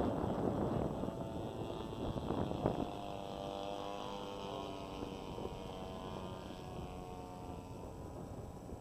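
Two-cylinder petrol engine of a radio-controlled P-51 Mustang scale model droning overhead, its pitch sinking slowly as it fades away.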